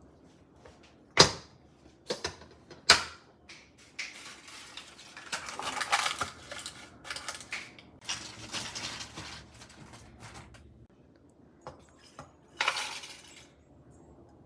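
A bento box and its contents being handled: a few sharp clicks and clacks in the first three seconds, then several seconds of rustling and scraping, and another short clatter near the end.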